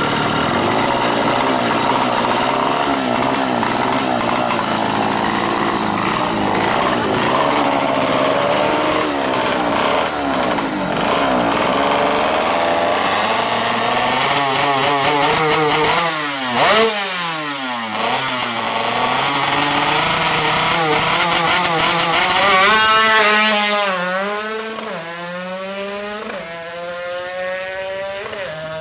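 Yamaha F1ZR two-stroke motorcycle engine, bored to 128 cc and fitted with a Honda Grand CDI, being revved over and over, its pitch swinging up and down. There is a sharp rev a little past halfway and the loudest, highest rev about 23 seconds in, and after that the revs are lower and quieter.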